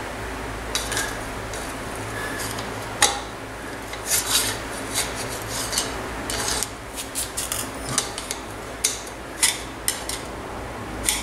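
A long screwdriver scraping and clinking against metal inside a moped's wheel hub as it prods at the spacer sleeve between the wheel bearings: irregular sharp metallic clicks and short scrapes.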